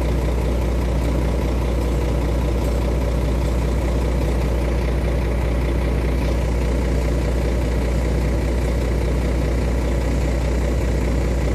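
Three-axle crane truck's diesel engine idling steadily with a constant low hum.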